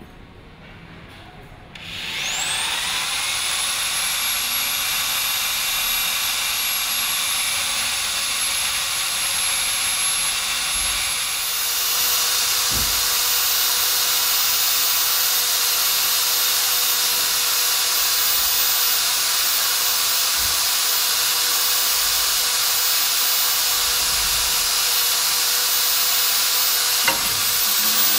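Electric drill spinning up about two seconds in, then running steadily with a high whine and a rasping hiss as a carbide-tipped holesaw cuts into stainless steel plate.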